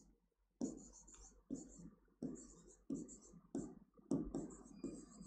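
Faint scratching strokes of a pen writing words by hand on a board, a short stroke about twice a second.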